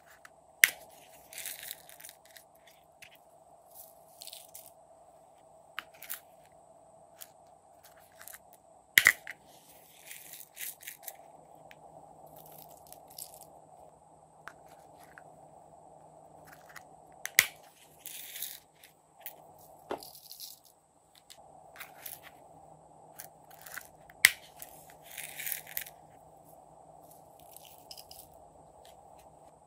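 Small plastic toy containers snapping open with sharp clicks, four loud ones spread out, each followed by a brief hissing rattle of sprinkles and confetti being shaken out onto slime.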